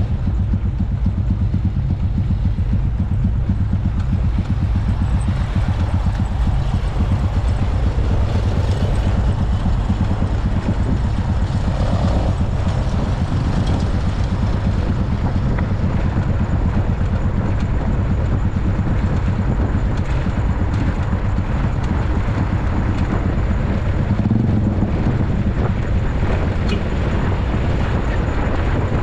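Motorcycle engine running steadily on the move, with a constant low drone and a haze of road noise above it.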